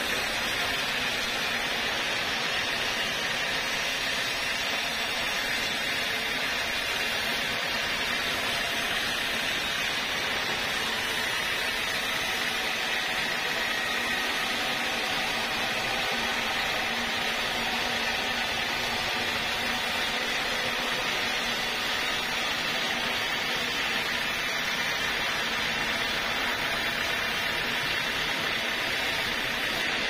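Band sawmill running, its vertical blade cutting lengthwise through a large hardwood log in a steady, unbroken hiss.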